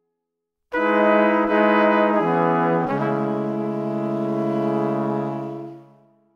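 Background music: a solo melodic line starting about a second in after a short silence, moving through a few notes and ending on one long held note that fades away near the end.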